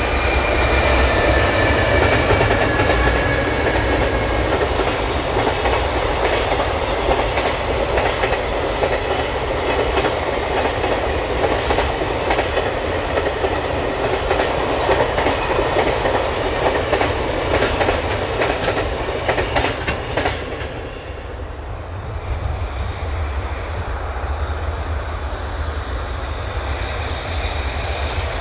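Container freight train behind an EH500 electric locomotive passing close by: the wagons' wheels rattle over the rail joints in a steady clickety-clack, with a faint falling whine in the first few seconds. About 21 seconds in, the sound drops to the quieter, steady rumble of a more distant train.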